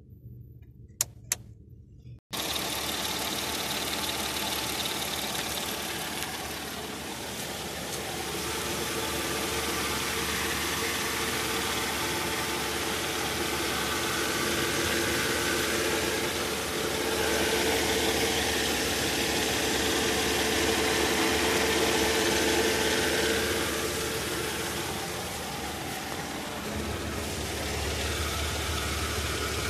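Mercedes-Benz ML 320's 3.2-litre V6 idling steadily, heard from inside the cabin. Two short clicks come about a second in, then the engine sound cuts in abruptly about two seconds in and holds an even idle, swelling slightly in level midway.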